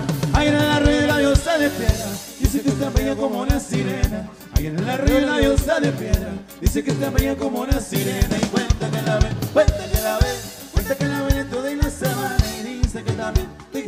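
Live norteño band playing: button accordion, twelve-string bajo sexto, electric bass and drum kit keeping a steady beat.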